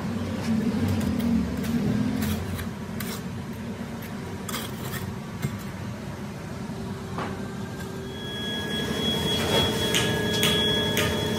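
Foundry sand-screening machine running with a steady rumble while moulding sand pours through its mesh, with scattered clicks and knocks. A thin, high steady whine joins about eight seconds in.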